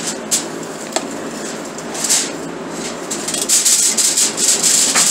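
Kitchen knife poking and scraping in a disposable aluminium foil pan of cabbage rolls, the thin foil crinkling and crackling. A couple of sharp clicks come early, then a denser run of quick crinkles through the second half.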